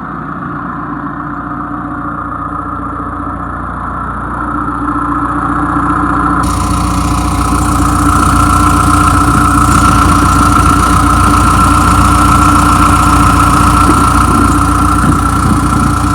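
John Deere 410E backhoe loader's 4.5-litre diesel engine idling steadily and evenly, getting louder about four to seven seconds in. It runs smoothly, "like a sewing machine", a sign of an engine in good health.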